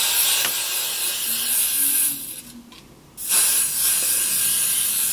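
Aerosol hairspray can spraying at the hairline in two long hissing bursts, each about two seconds, with a pause of about a second between them.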